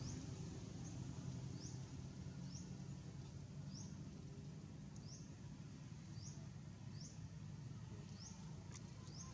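A faint high chirp repeated about once a second, each one a quick upward slide, over a low steady hum of background noise; a few sharp clicks come near the end.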